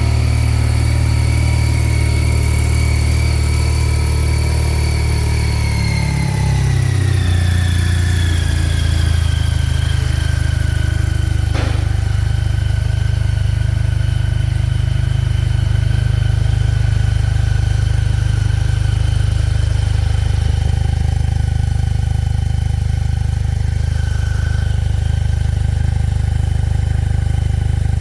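BMW R 12 nineT's stock 1,170 cc boxer twin idling in neutral. Its idle speed drops about six to nine seconds in and then holds steady. A single sharp click comes near the middle.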